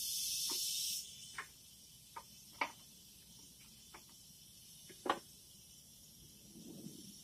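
A brief high hiss at the start, then irregular metal clicks and taps as a wrench works the nut on the leveling valve's linkage rod. Two of the clicks, one partway through and one about two-thirds in, stand out as the loudest.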